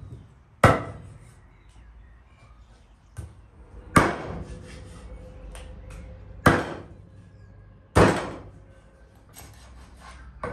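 Large kitchen knife chopping through a raw whole chicken onto a wooden cutting board: four loud, sharp chops a few seconds apart, with a few lighter knocks between them.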